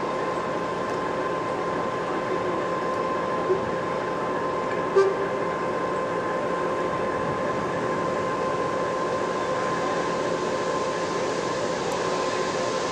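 A standing railway locomotive running steadily: a constant whine of several fixed tones over an even hiss. A short, sharper knock comes about five seconds in.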